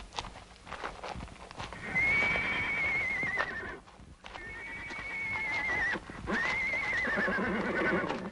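Horses neighing: a few hoof clops at first, then three long, quavering whinnies one after another.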